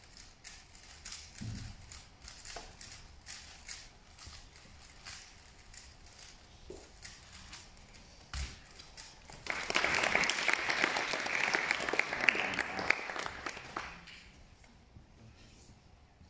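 Rapid clicking of a 3x3 speedcube being turned, then audience applause breaking out about nine and a half seconds in and dying away over about four seconds.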